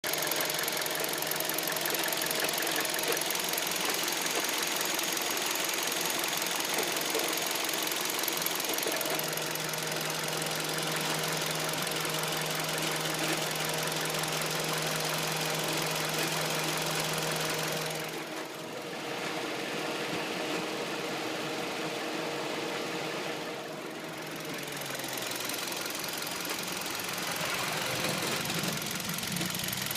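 Hyundai Solaris engine running, with the extraneous noise its owner is trying to track down. The engine note steps up about a third of the way in, and a tone slides down about five-sixths of the way through.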